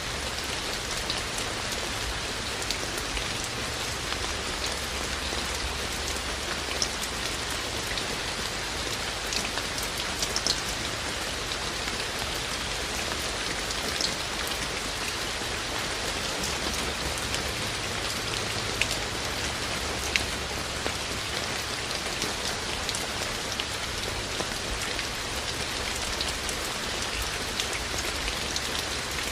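Steady rain falling, a constant hiss with scattered single raindrops ticking sharply through it.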